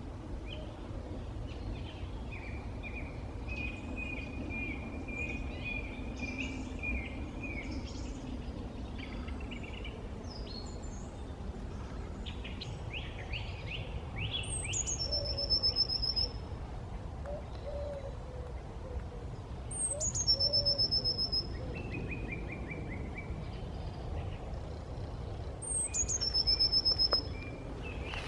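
Woodland birdsong: several small birds chirping and singing, with one bird loudest, repeating a short song three times about five to six seconds apart, each a high falling note into a rapid trill. A steady low rumble runs underneath.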